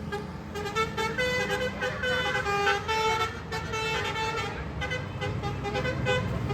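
Bus telolet horn playing a quick tune, several horn tones sounding together and stepping from note to note, over a low rumble.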